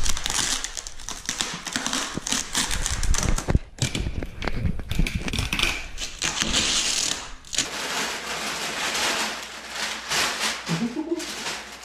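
A cardboard shipping box being opened: plastic wrap and packing tape cut and torn off, the packing slip pulled away and crumpled packing paper pulled out, a dense crackling and rustling full of small clicks. Thumps close by, loudest about three and a half seconds in, from the handheld camera being handled.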